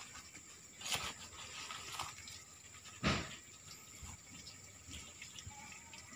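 Soft footsteps on bare dirt, about one a second, the loudest about three seconds in, over a faint steady high whine.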